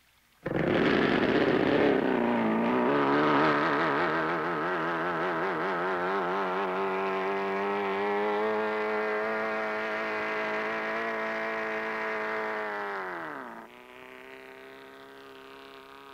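Evinrude V4 two-stroke racing outboard with tuned stacker exhausts starting abruptly and running at a high, wavering pitch that settles to a steady note. About 13 seconds in it falls away in pitch and loudness to a lower, quieter steady hum.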